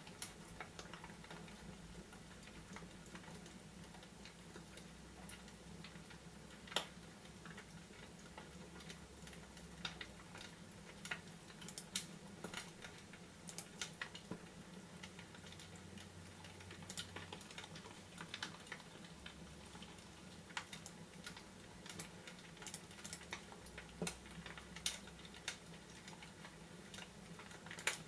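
Fireplace crackling: scattered, irregular pops and snaps over a steady low hum.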